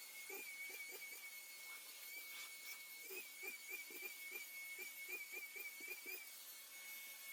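A faint, steady high-pitched whine that wavers slightly in pitch through the middle, with scattered soft taps and handling noises.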